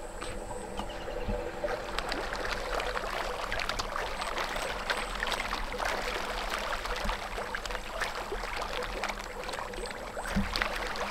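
A school of pond fish splashing and slurping at the water surface in a feeding frenzy, a dense crackle of many small splashes that builds about two seconds in. There is a single low thump near the end.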